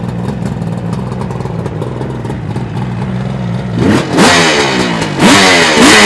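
Kawasaki H2 750 three-cylinder two-stroke on its stock exhaust, idling steadily, then blipped twice. The revs come about four and five seconds in, each rising sharply and falling back, the second the louder.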